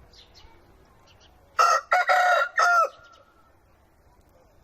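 A rooster crowing once: a loud crow of just over a second, starting about a second and a half in and broken into three quick parts.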